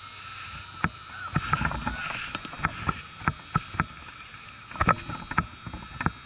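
Irregular close knocks, clicks and rustles of a catcher's gear and mitt as he settles into his crouch behind home plate, picked up by the camera he is wearing.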